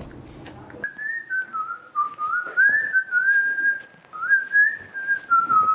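A person whistling a wandering tune: one clear pitch sliding up and down in short phrases, starting about a second in.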